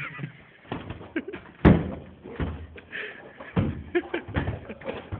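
Thuds and bangs of people scuffling and hitting each other, bodies knocking against a door or wall. The loudest is a sharp bang nearly two seconds in, with several more blows after it.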